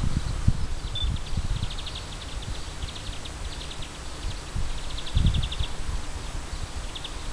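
Wind buffeting the microphone in uneven gusts, with short trills of rapid high chirps recurring several times over it.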